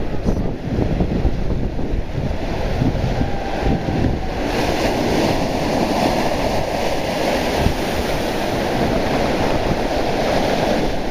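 Sea surf breaking and washing over rocks at the shoreline, with wind buffeting the microphone; the hiss of the wash grows fuller about four seconds in.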